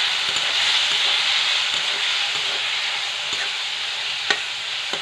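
Chopped onion and tomato sizzling in hot oil in a metal kadhai, stirred with a metal spatula that clinks against the pan a few times in the second half.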